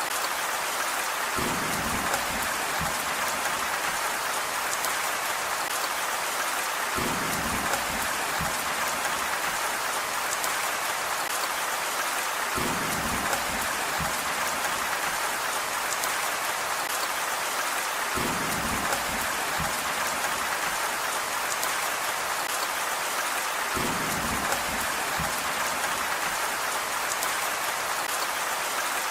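Steady, even rain hiss, with a short low rumble about every five and a half seconds, five times in all.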